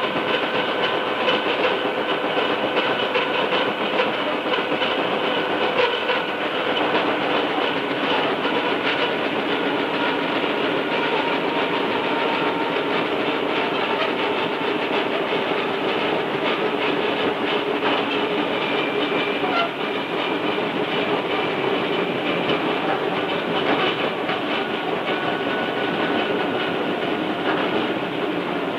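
Tobu 5050 series electric train running at a steady speed, heard on board. The gears of its nose-suspended traction motors give a steady whine over the clatter of the wheels on the rails, and the rhythmic knocking of a flat spot, worn into a wheel by a skid, is mixed in. The tape recorder's built-in microphone distorts the sound.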